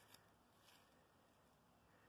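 Near silence, with a few faint soft ticks in the first second.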